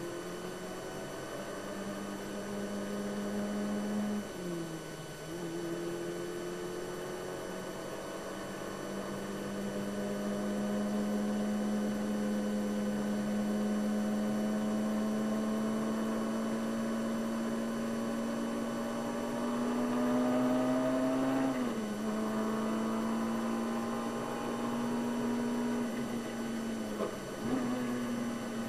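Onboard sound of a Brabham BT21's one-litre Formula 3 engine pulling hard, its pitch climbing slowly as the car gathers speed. The revs drop sharply and pick up again about four, twenty-one and twenty-seven seconds in.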